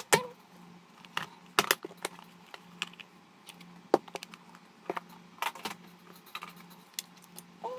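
Hard plastic cases being handled on a silicone work mat: irregular clicks, taps and knocks as a clear hinged plastic case is opened and closed and things are set down.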